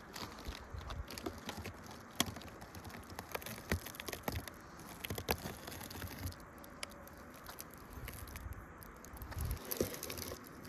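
Irregular small knocks, clicks and crunches of a snow-covered beehive being opened and handled, over a faint low rumble.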